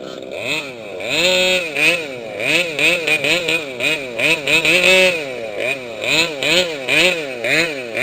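Small two-stroke engine of a gas-powered 1/5-scale RC car, blipped up and down over and over, about twice a second, after running at a lower pitch for the first second.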